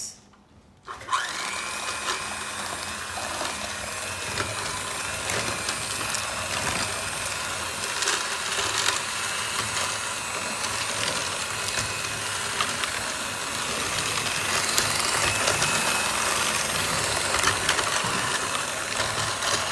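Black+Decker electric hand mixer switching on about a second in and running steadily, its beaters creaming butter, sugar and oil in a plastic bowl, with scattered clicks.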